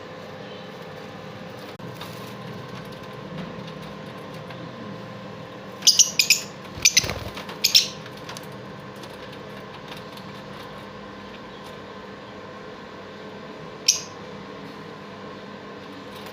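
A handful of short, sharp bird calls: four in quick succession about six to eight seconds in and one more near the end, over a steady background hum.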